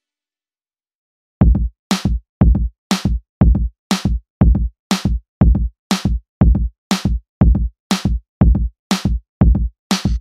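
Electronic background music: a drum-machine beat of about two hits a second, deep kicks alternating with sharp, bright snare-like hits. It starts about a second and a half in.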